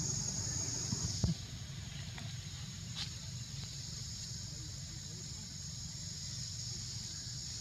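Insects droning steadily in a high hiss over a low constant rumble, with a sharp click about a second in and a fainter one a couple of seconds later.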